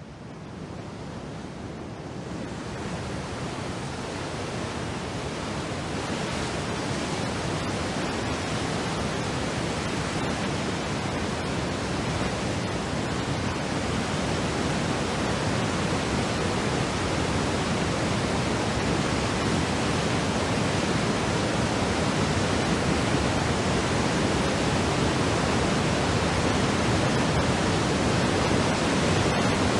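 Waterfall: a steady, even rush of falling water, fading in at the start and growing slowly louder through the first half.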